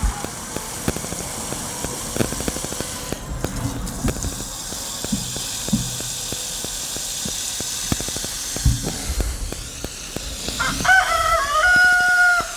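A rooster crows once near the end, one held call about a second and a half long, over a steady crackle of clicks from microphone interference.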